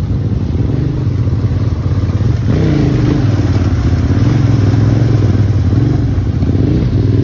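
Adventure motorcycle engine running under throttle while crossing a shallow river, with water splashing around the wheels. From about two and a half seconds in it gets louder, and the engine pitch rises and falls as the throttle changes.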